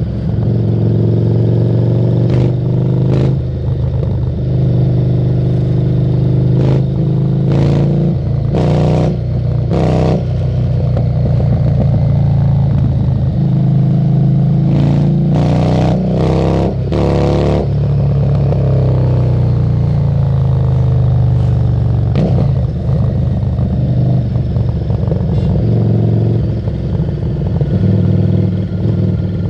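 Harley-Davidson Street 750's V-twin engine running under way through a Screamin' Eagle exhaust, its pitch rising and falling with the throttle. A few short noisy bursts come through near the middle.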